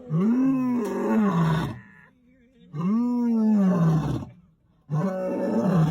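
Lion roaring: three long roars in a row, each rising and then falling in pitch, with short pauses between them.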